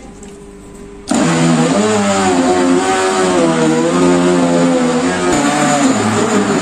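Silver Crest SC-1589 heavy-duty blender motor starting suddenly about a second in and running at high power, chopping a full jug of onion chunks. Its pitch wavers, dipping and rising as the blades work through the load.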